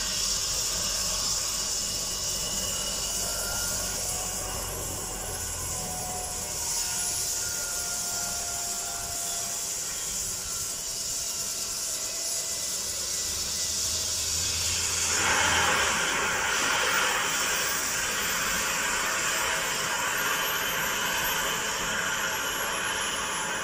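Air ambulance helicopter running on the ground with its rotor turning: a steady turbine hiss and whine with rotor noise. About two-thirds of the way through it grows louder and fuller, and near the end a very high whine sinks in pitch.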